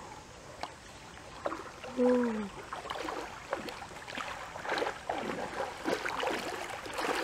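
Water splashing and sloshing as hands grope through a shallow stream, getting busier and more irregular from about three seconds in. A brief voice-like call, falling in pitch, comes about two seconds in and is the loudest sound.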